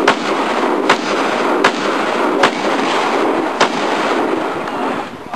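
Shotgun fired five times in quick succession, roughly one shot a second, each sharp report followed by a lingering echo.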